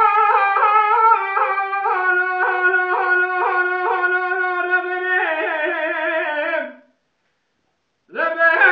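A man singing unaccompanied Kurdish dengbêj song in a high, strong voice, with quick ornamented turns on each note. Then comes a long held note that wavers and fades out about seven seconds in. After about a second's pause he starts the next phrase.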